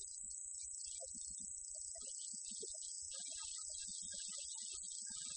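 A steady, high-pitched electronic whine on a single constant tone, with only faint scattered low sounds beneath it.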